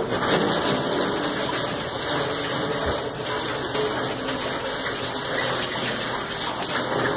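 Water gushing from a tap at a fish-cleaning table, turned on suddenly and then running steadily.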